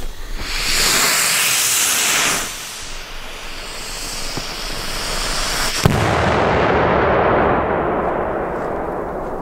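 Firework: a loud hiss for about two seconds, then a quieter hiss. About six seconds in comes a single sharp bang, followed by a long echo that slowly dies away.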